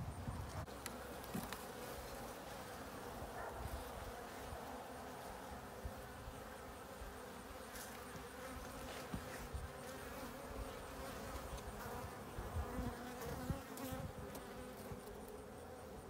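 Honeybee colony buzzing steadily in an opened hive, a continuous hum, with scattered light clicks and knocks.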